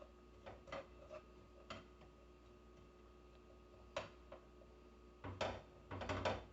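Metal spatula tapping and scraping in a wok while stirring garlic and dried onion over low heat: a few scattered light clicks, then a denser stretch of scraping and clinking near the end.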